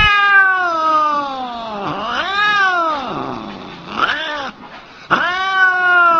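An angry cat yowling: four drawn-out wails, most of them falling in pitch. The second one rises and falls, the third is short, and the last starts about five seconds in.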